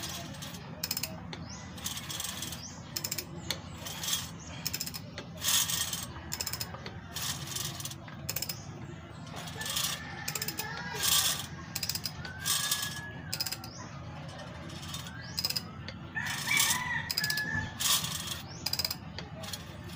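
Hand ratchet wrench clicking in irregular bursts of strokes, turning the engine over by hand while the valve clearances are set.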